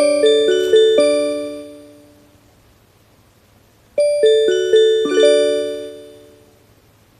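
Recreated Japanese in-train announcement chime: a short melody of bell-like notes, each ringing and dying away. One phrase ends and fades in the first couple of seconds, then after a pause a second phrase of about six notes starts about four seconds in and fades out.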